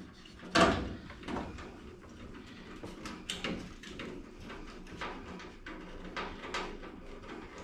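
Irregular knocks, clunks and scrapes from a truck grille being handled and set into the front end, with the strongest clunk about half a second in.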